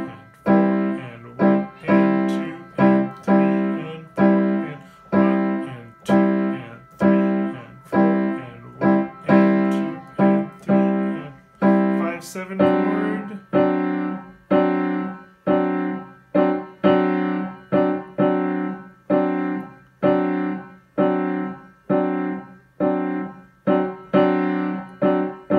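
Piano playing block chords over and over in a steady syncopated rhythm, a warm-up on the primary chords of G major. The chord changes about halfway through.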